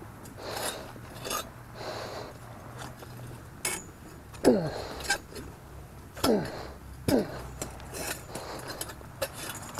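Steel pouring shank and crucible clinking and rattling as the crucible of molten cast iron is tipped over a sand mold and lowered, over heavy breathing. Three short, loud sounds slide down in pitch in the middle, among scattered sharp clicks.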